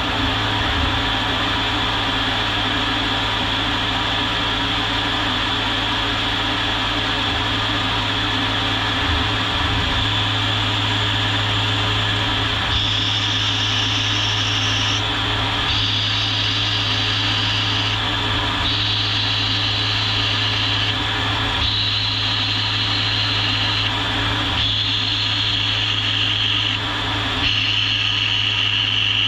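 Tormach 770M+ CNC mill spindle spinning a metal part at about 3000 rpm against a fixed turning tool, the mill turning it like a lathe at 8 thou per rev. A steady spindle hum with a high cutting hiss that steps up and down every couple of seconds from about halfway in as the tool works along the part.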